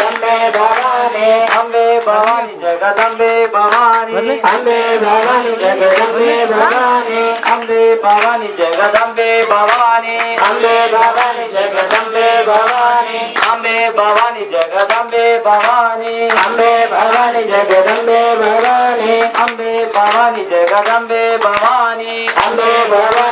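Men singing a devotional chant through microphones, with regular hand claps keeping the beat over a steady held drone note.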